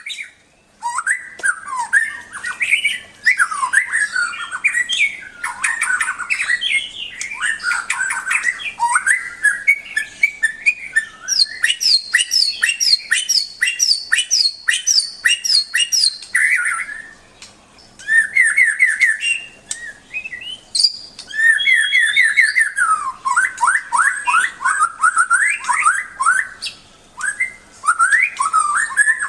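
White-rumped shama (murai batu) singing a long, varied song of whistled phrases, with fast runs of repeated notes and a few short pauses.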